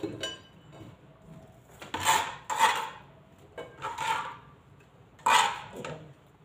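Knife work on red onions on a plastic cutting board, with the pieces handled onto a plate. There are about six separate short cutting and scraping strokes with quiet gaps between, the loudest two coming close together about two seconds in.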